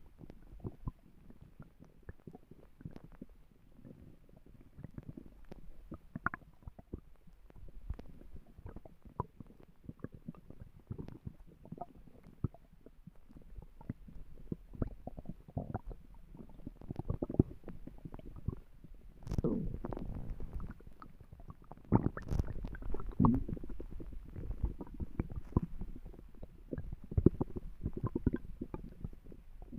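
A person's stomach growling: a continual run of short, low gurgles and pops, with louder rumbling spells about two-thirds of the way through.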